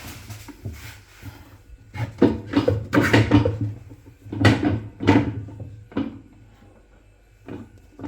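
A run of knocks and clunks from handling a Hoover Automatic 820 washing machine, coming thick and fast about two to five seconds in, then a couple of lighter knocks.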